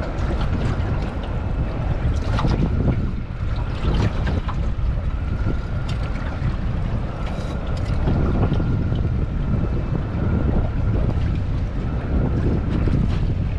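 Wind buffeting the microphone over choppy water slapping against a small boat, with a few light clicks scattered through it.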